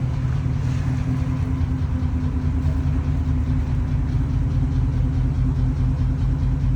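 Jaguar car running steadily on the move: an even low engine drone with road noise.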